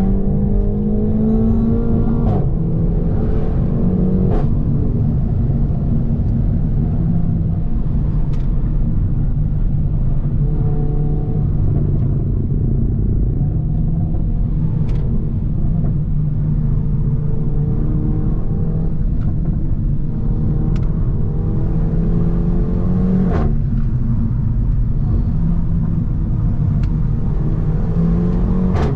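Renault Mégane 4 RS 280's 1.8-litre turbocharged four-cylinder running through a catless exhaust while driving. The engine note climbs and then drops sharply at about two seconds in, and again a little before the end, as at an upshift, and holds steadier in between. A few short sharp cracks are heard, some falling at those drops.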